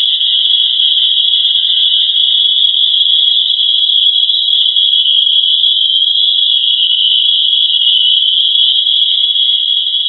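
A loud, steady, high-pitched shrill drone holding one pitch, with a fainter lower tone beneath it. This is the sound presented as NASA's recording of the Earth's vibration.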